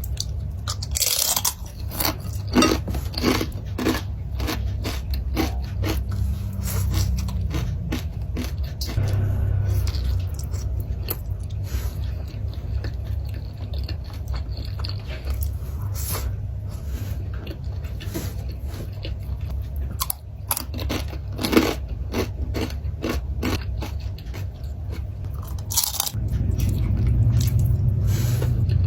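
Close-up crunching and chewing of crispy fried chicken and crisps, sharp irregular bites coming every second or so, over a steady low hum.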